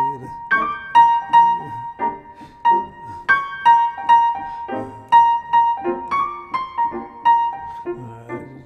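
Piano playing a jazz solo line: short, detached right-hand notes several times a second over sparse left-hand chords.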